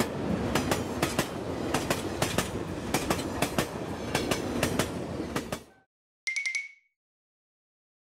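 Passing train: a low rumble with a clickety-clack of wheels over rail joints, fading out after about five and a half seconds. Soon after comes a brief bright ringing sound effect.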